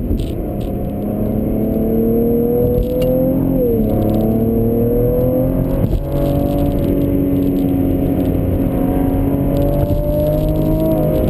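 Cadillac ATS-V's twin-turbo V6 heard from inside the cabin, accelerating hard with its note rising. The pitch drops at a gear change about three and a half seconds in, then climbs again slowly.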